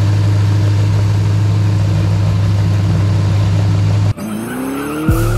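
Chrysler 440 big-block V8 on an engine run stand, running steadily during its break-in run. About four seconds in it cuts off abruptly and intro music begins with rising sweeps.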